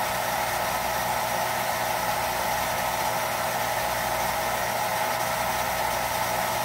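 Jet pump's electric motor running with a steady hum as it builds water pressure toward its cut-off. With the inline check valve that caused the chatter taken out, it runs without any clicking.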